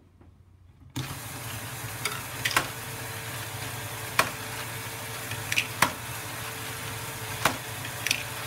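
LEGO great ball contraption Archimedes-screw module running, starting about a second in: a steady hum and plastic rattle from its motor-driven gear train, with about seven sharp clicks of plastic balls knocking through the outlet.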